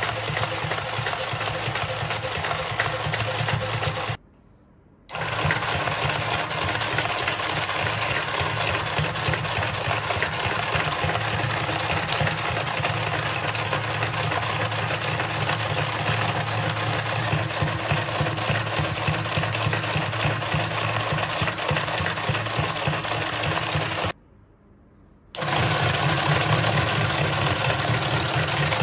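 Battery toy dinosaur slide's small electric motor and gearbox running hard, with the plastic stair-step conveyor clattering as it lifts the figures, overdriven at 10 to 15 volts. A steady, dense mechanical rattle that drops out twice for about a second and comes back a little louder after the second break, at the highest voltage.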